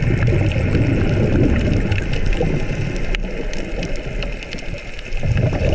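Scuba regulator exhaust bubbles heard underwater through a mask-mounted GoPro: a long bubbling rumble, a quieter stretch, then a second rumble near the end, marking the diver's exhaled breaths. A steady hiss and scattered clicks run underneath.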